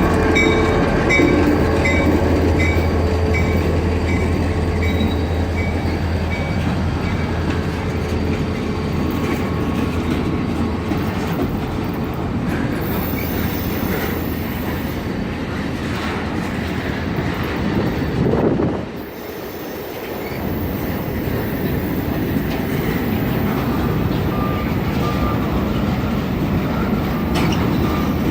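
Freight train cars rolling past on a BNSF transfer: a steady rumble of wheels on rail with squeals and clicking over the joints. A locomotive's low engine drone is strong in the first few seconds and fades out.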